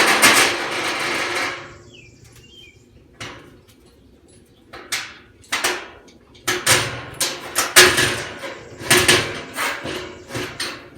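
Steel parts of a lawnmower-lift work table clanking and knocking: a loud scraping rush at the start, then a string of sharp metal knocks as steel pieces and bolts are fitted.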